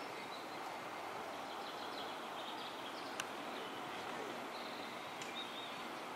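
Outdoor ambience: a steady background hiss with small birds chirping on and off, and one sharp click about three seconds in.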